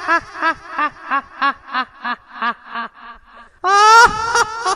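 A high-pitched ghost cackle, 'ha-ha-ha', in a quick series of about four laughs a second that fades away, then a loud new cackle breaks out near the end.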